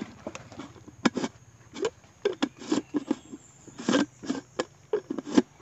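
White plastic jar with a green screw lid being closed and handled: about a dozen short, irregular scrapes and knocks.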